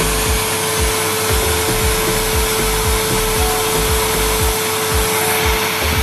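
Numatic Henry canister vacuum cleaner running steadily: an even motor and suction drone with a constant hum through it.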